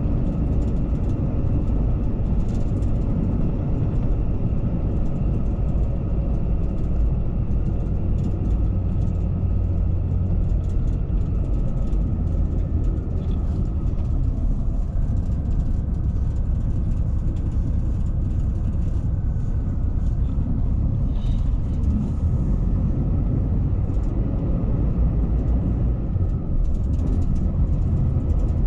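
Cabin noise inside a moving coach bus: a steady, low rumble of engine and road noise.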